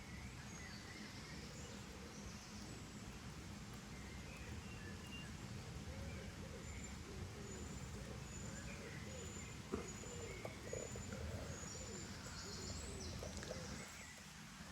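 Outdoor ambience of birds calling, including a run of short, high, evenly spaced notes through the middle, over a steady low background rumble.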